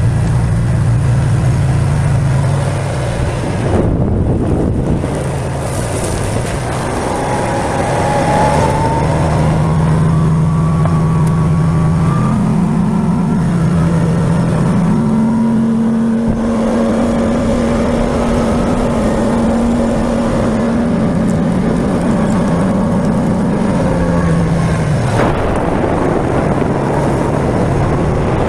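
Side-by-side utility vehicle's engine running steadily as it drives along a dirt track, over a steady rushing noise. The engine note climbs in steps through the first half and drops back a few seconds before the end.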